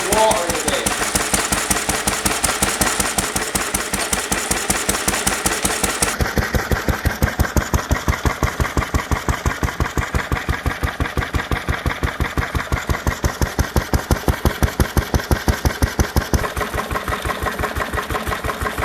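Bamford EV2 single-cylinder stationary engine running at a steady speed, its exhaust beating in a quick, even rhythm. A hiss rides over it for the first few seconds and then stops.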